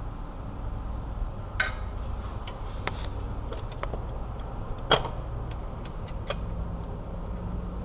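Irregular metallic clicks and taps from a hand ratchet working the starter mounting bolts, over a steady low hum. The two loudest clicks come about one and a half seconds and about five seconds in.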